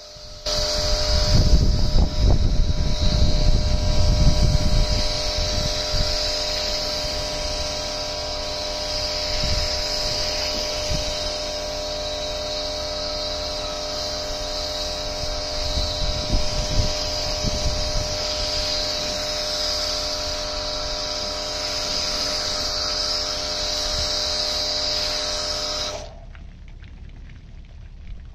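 Pressure washer with a foam cannon spraying snow foam: a steady motor hum under a high hiss of spray, which stops suddenly a couple of seconds before the end.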